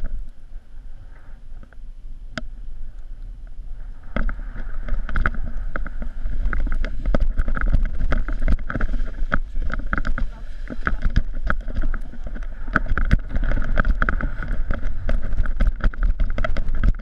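Wind buffeting a pole-mounted action camera's microphone as a tandem paraglider is launched, growing much stronger about four seconds in, with many knocks and rattles from the pole and harness.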